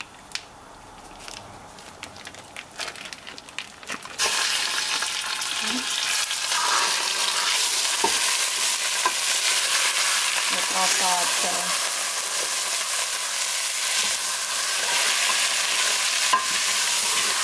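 Ground beef sizzling in a hot stainless steel stockpot with browned dried onions, a wooden spoon stirring and scraping through it. The hiss starts suddenly about four seconds in as the meat hits the hot pan, after a few light clicks and knocks, and then holds loud and steady. The pan is hot enough that the meat sticks right away.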